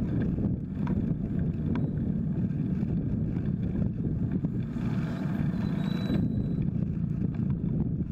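Wind rumbling on the microphone of a bike-mounted camera while riding, with road traffic around. A louder hiss of a passing vehicle lasts about a second and a half midway.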